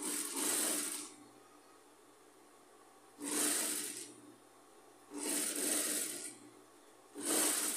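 Industrial sewing machine stitching in four short runs of about a second each, with brief pauses between runs.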